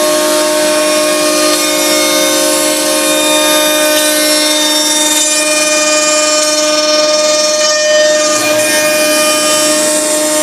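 CNC router spindle running at steady speed with a surfacing bit, planing the face of a wooden chessboard: a steady high whine with several held tones over the hiss of the cut.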